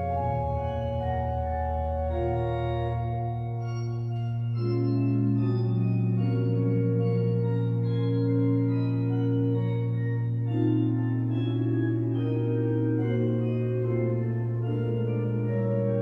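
Great pipe organ of Notre-Dame de Paris playing softly: a held low pedal note sounds throughout under flowing figures in the manuals, and a deeper bass note drops out about three seconds in.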